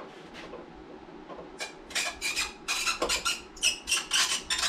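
Jeep Wrangler JK tail light being worked off the body: a quick, irregular series of plastic scrapes and squeaky rubs that starts about a second and a half in.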